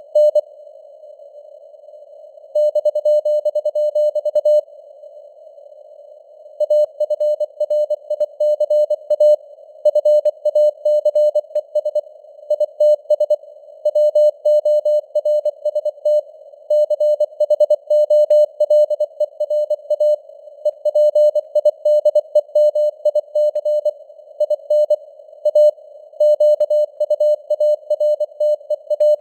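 Morse code (CW) sent at 24 words per minute: a single steady tone keyed on and off in dots and dashes, over a narrow band of simulated radio receiver hiss. The keying pauses twice in the first seven seconds, leaving only the hiss.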